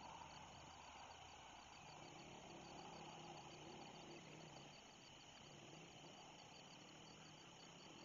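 Faint night chorus of crickets: a high, steady, rapidly pulsing trill, with a faint low hum beneath.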